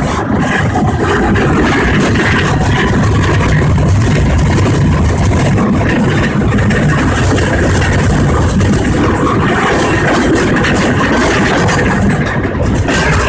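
Loud, steady running noise of a vehicle, heaviest in the low end and without clear changes.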